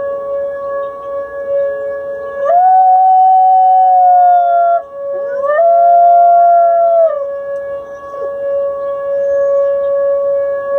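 A dog howling twice, each a long held note of about two seconds, over a steady musical tone that sounds throughout.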